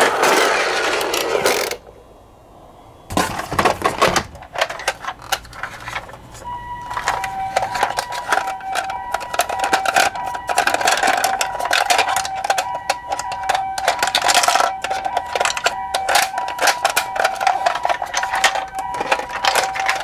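Plastic toy ambulances rattle and roll down a cardboard ramp, and the rolling stops abruptly about two seconds in. After a short quiet, plastic clicks and knocks come from a toy ambulance being handled. From about seven seconds in, a toy ambulance's electronic two-tone siren repeats steadily over the clicking.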